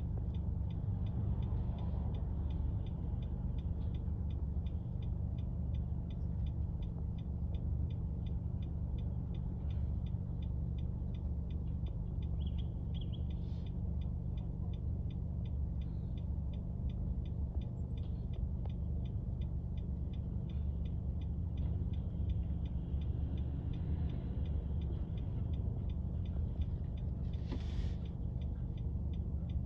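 City street ambience: a steady low rumble of traffic, with a faint, regular high ticking of several ticks a second. A short hiss about 27.7 s in, near the end.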